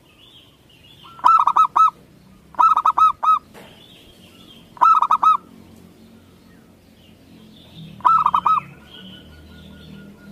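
Zebra dove (local Indonesian perkutut) singing: four short phrases of quick ringing coos, four or five notes each, with fainter high chirps of other birds between them.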